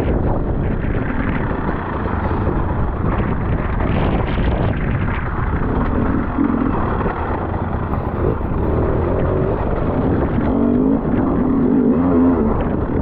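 Enduro motorcycle engine running under heavy wind noise on the microphone. In the second half its pitch rises and falls as it is revved.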